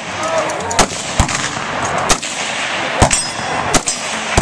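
Gunshots on a shooting range: about six sharp single cracks at uneven intervals, roughly one a second, over a steady hiss of background noise.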